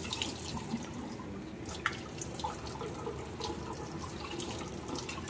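Hot water poured from a plastic jug onto a whole piglet's skin in a stainless steel sink, splashing and running off into the sink with scattered drips and small splashes. The water is scalding the skin before roasting.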